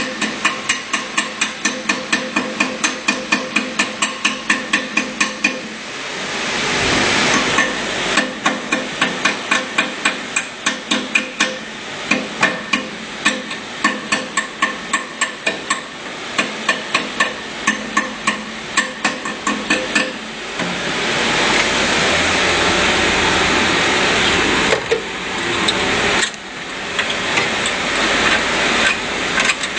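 Rapid hammer blows, about four a second, with a ringing tone, in two long runs with a short break about six seconds in. The hammering stops about twenty seconds in and a steady rushing noise takes over.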